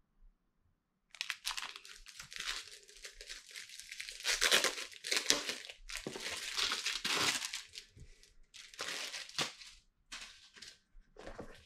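Packaging crinkling and tearing as it is pulled open by hand, in irregular bursts that start about a second in.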